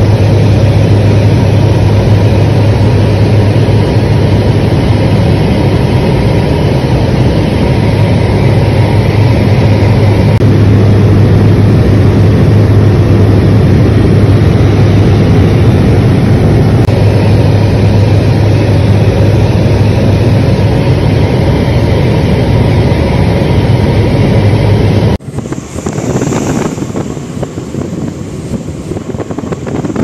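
Turboprop aircraft heard from inside the cabin: the engine and propeller make a loud, steady drone with a strong low hum. About 25 seconds in it cuts off suddenly to quieter, gusty wind on the microphone over waves on a ship's deck at sea.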